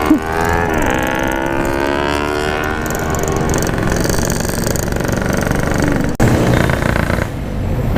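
Yamaha RX-King two-stroke motorcycle engine accelerating, its note rising steadily for about two seconds and then holding, under wind and road noise. A little after six seconds the sound cuts out briefly and the engine comes back on a lower note.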